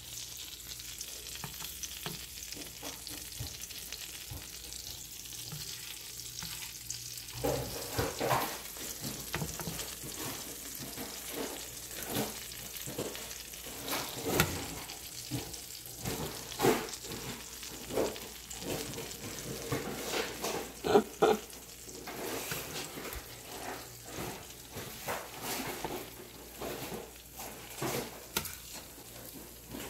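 Batter-coated bacon strips frying in hot oil in a griddle pan: a steady sizzle with crackles and sharp pops, which come more often from about seven seconds in.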